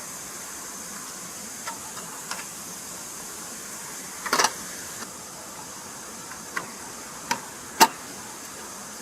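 Steady rush of a flowing stream, with about six sharp knocks and clicks scattered through it; the loudest comes near the end, and a quick double knock falls a little before the middle.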